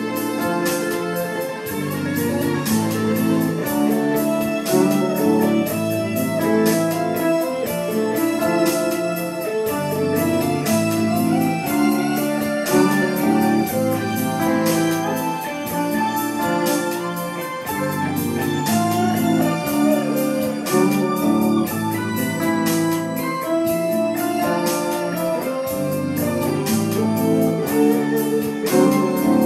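Electric guitar played through an amplifier, a continuous piece of chords and melody with held notes and a steady pulse of sharp ticks.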